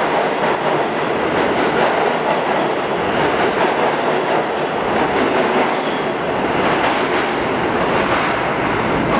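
New York City Subway R211A train approaching through the tunnel into the station: a steady noise of steel wheels running on the rails, with faint repeated clicks of the wheels over rail joints.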